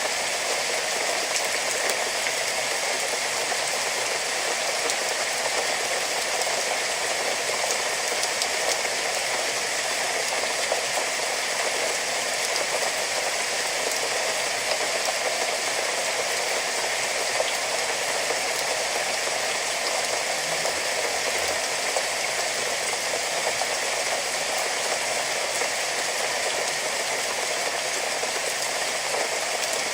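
Steady heavy rain falling, a dense even hiss with faint patter of drops.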